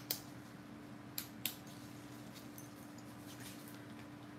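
Faint plastic clicks and taps as an electric tobacco grinder is twisted tight onto a small jar of acrylic powder, two sharper clicks close together about a second in.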